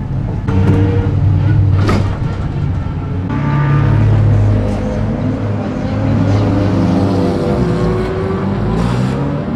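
Race car engines running at low pit-lane speed, their pitch rising and falling as cars move along the pit lane. There is a sharp click about two seconds in.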